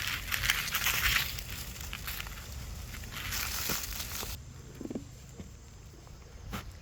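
Patchy rustling and crackling that cuts off abruptly about four seconds in, leaving a quieter low rumble.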